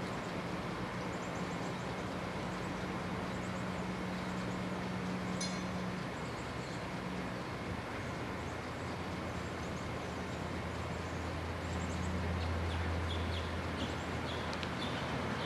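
PCC streetcar No. 7407 approaching slowly along the track, a steady electrical hum over a low rumble. About two-thirds of the way through, the hum drops lower and grows louder as the car draws near.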